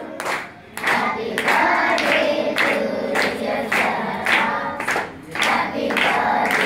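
A group of children singing together and clapping in time, about two claps a second, with brief pauses near the start and about five seconds in.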